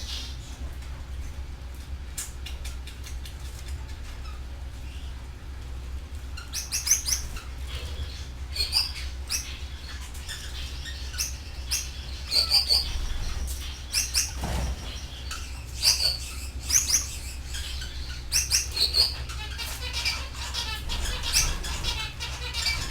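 Canaries chirping, with short, high calls coming again and again from about six seconds in, over a steady low hum.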